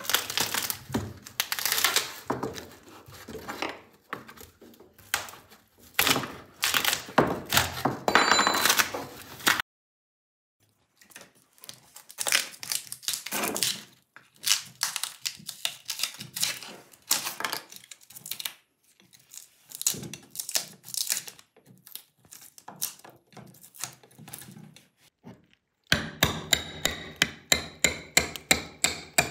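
A cured epoxy resin casting being broken out of its mold: the laminate band is peeled away and a screwdriver pries between the resin and the base board, giving irregular cracks, knocks and scrapes with a brief squeak. Near the end comes a fast, even run of sharp knocks.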